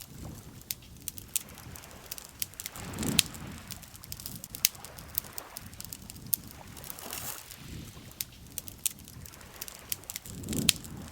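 Campfire crackling with scattered sharp pops, over lake water lapping gently in slow swells, the strongest about three seconds in and near the end.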